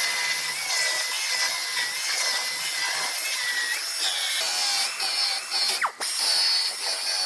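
Power tool whining as it cuts into the aluminum bedside of a Ford F150, with a high, wavering whine.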